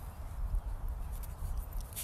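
Small dog rolling and wriggling on its back on grass, its body scuffing and rustling the grass in light crackles, over a steady low rumble.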